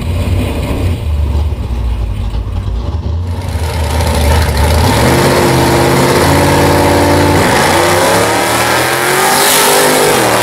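Chevy drag car's engine: a low rumble at first, then held at steady revs on the start line, then launching about seven seconds in with revs climbing steeply and a brief drop near the end.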